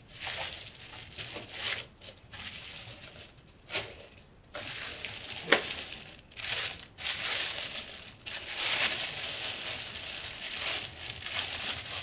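Clear plastic wrapping crinkling and rustling in irregular bursts as wrapped statue pieces are handled and lifted out of foam packaging, with one sharp click about five and a half seconds in.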